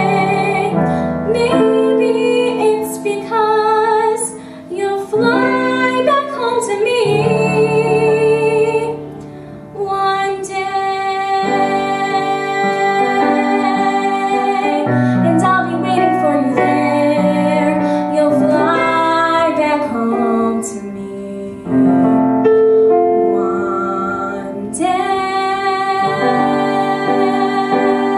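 A young female vocalist singing solo into a microphone with piano accompaniment.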